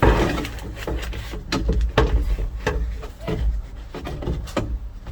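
Repeated irregular knocks, clunks and rattles as a window regulator assembly is worked through the opening of a truck door, metal knocking against the door's sheet-metal shell, with rough handling rumble underneath.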